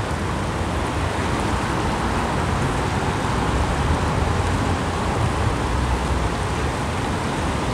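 Steady outdoor rushing noise with a low rumble underneath, even throughout, with no distinct events standing out.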